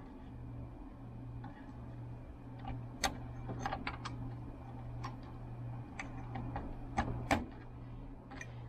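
Small sharp clicks and taps from wire connectors being handled and pushed onto a cassette deck's circuit board, scattered mostly between about three and seven and a half seconds in, over a steady low hum.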